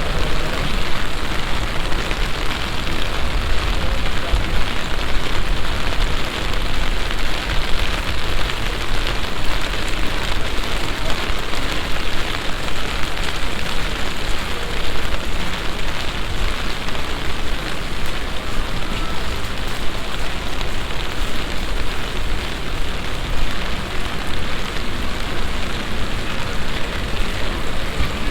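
Heavy summer downpour: a passing shower falling hard and steady, with a dense, even hiss of rain hitting the ground and surfaces.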